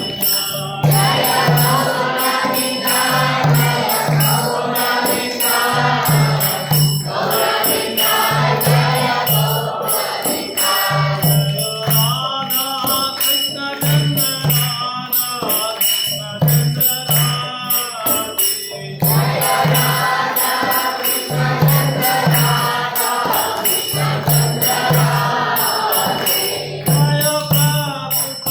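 Devotional kirtan: a group singing a chant together, with hand cymbals (karatals) ringing in a steady rhythm over a regular low beat.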